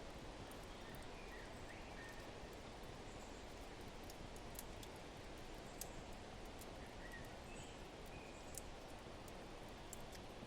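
Fireplace fire crackling softly, scattered small pops over a steady hiss of wind, with a few short bird chirps.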